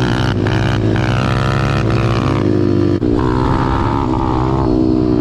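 Pit bike engines running while under way, their pitch rising and falling with the throttle, with a brief dip in level about three seconds in.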